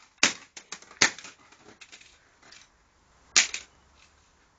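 Hammer blows on an Xbox hard drive lying on concrete, smashing it. There are three sharp strikes, two within the first second and one about three seconds in, with small clicks and rattles between them.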